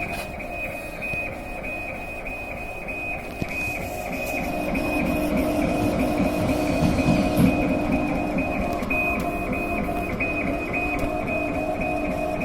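Dual-head CO2 laser cutting machine running a test job. A high tone switches on and off in quick, irregular pulses over a steady machine hum, and the hum grows louder around the middle.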